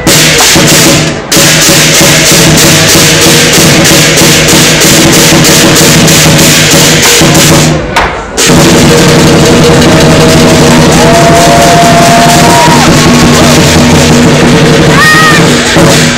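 Chinese lion dance percussion: a drum beaten with clashing hand cymbals and a ringing gong, loud and continuous. It breaks off briefly about a second in and again about eight seconds in.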